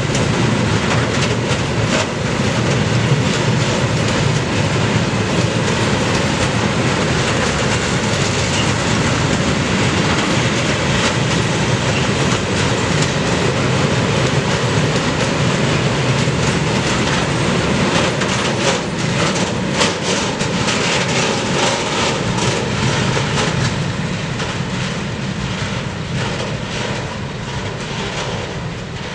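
Freight train's open wagons rolling past at close range: a steady rumble of wheels on rails, with clattering over the rail joints. It fades over the last few seconds as the end of the train pulls away.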